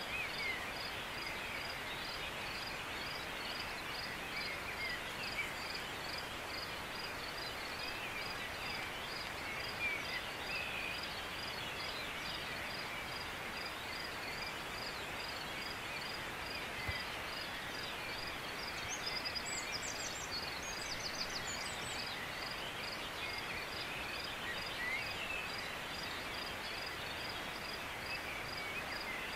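Outdoor wildlife ambience: a steady hiss under a high chirp that repeats evenly about three times a second, with scattered short bird calls and a brief burst of higher twittering about nineteen to twenty-one seconds in.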